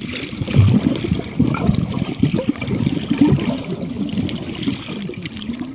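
Water heard through a camera microphone held underwater: dense, muffled bubbling and sloshing, full of short low thuds and crackles.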